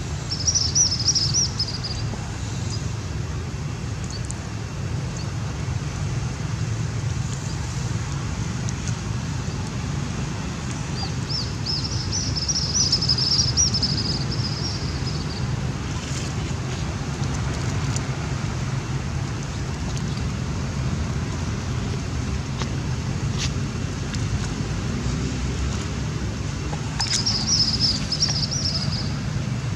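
Steady low outdoor rumble, with three short bouts of high-pitched chirping: one near the start, a longer one midway and one near the end.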